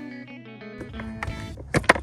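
Guitar background music that stops a little under a second in. Then a low background and two sharp, loud clicks or knocks close together near the end.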